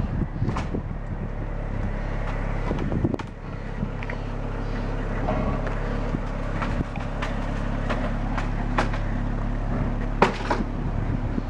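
A steady low engine hum, with scattered clicks and knocks throughout.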